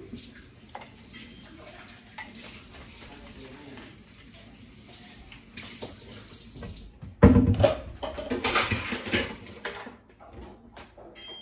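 Kitchen handling noises: items rustling and clattering irregularly, loudest for about two to three seconds past the middle.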